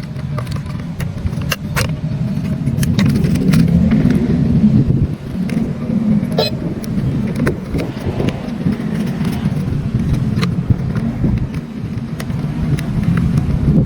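Small electric motors of an RC excavator running with a steady low buzz that swells and eases, with scattered clicks and knocks from the mechanism.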